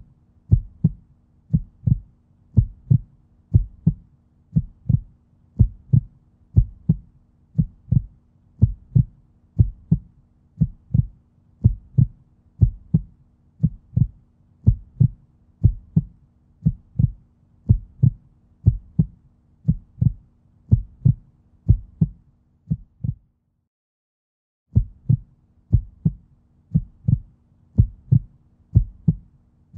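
Background soundtrack of a heartbeat-like pulse: regular pairs of low thumps over a steady low drone. It breaks off for about a second and a half after some 23 seconds, then starts again.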